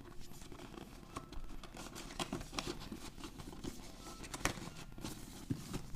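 Mask packaging being handled and opened: an irregular run of small clicks, taps and crinkles of box and wrapping.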